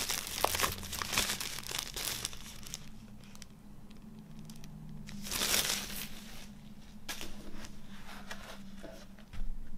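Clear plastic shrink wrap crinkling and crackling as it is handled and crumpled, densest in the first two seconds and again around the middle, with scattered smaller crackles after. A short soft thump near the end.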